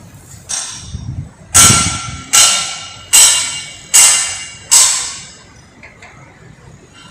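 Hammer striking steel on a tower crane: five ringing metal blows about 0.8 s apart, after a softer knock just before them, typical of pins being knocked through the crane's steelwork as it is taken apart.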